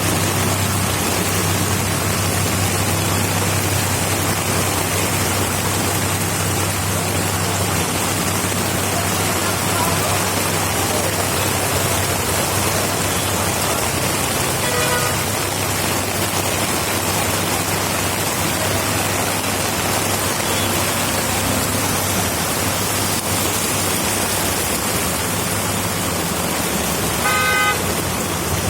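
Rain hissing steadily over road traffic with a low engine hum; car horns toot briefly about halfway through and again near the end.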